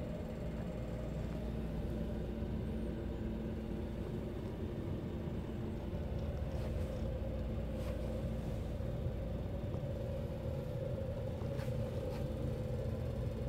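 A steady low hum over a faint rumble, with a few faint clicks partway through.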